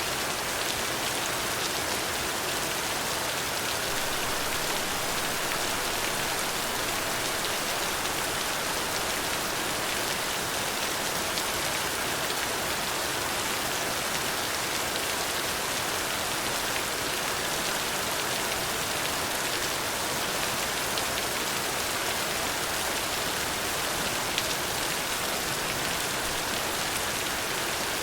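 Steady rain falling, an even hiss with scattered drop ticks, strongest in the higher pitches.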